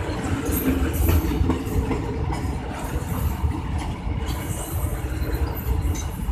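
Freight train rolling along the track: a steady rumble of wheels on rails, with brief high squeals that come and go.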